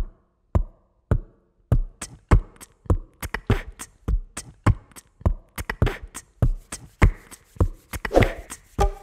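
Background music opening with a bare drum beat: a low kick about every half second, with sharper clap- and tick-like hits filling in between as it goes on. Pitched sound joins near the end.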